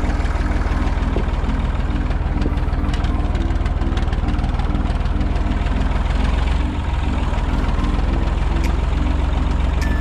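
Small farm tractor's diesel engine running steadily under way, heard close up from on board, with a steady low engine beat.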